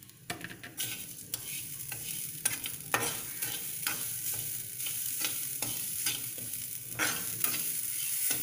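A metal spatula stirring and scraping grated coconut and sugar in a hot non-stick pan, with irregular scrapes and taps against the pan.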